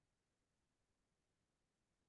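Near silence: the audio track is essentially digital silence, far below any audible sound.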